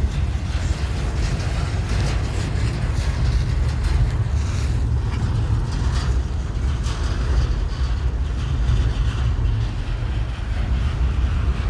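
Freight train rolling past, a steady low rumble with faint clicks of the wheels on the rail joints.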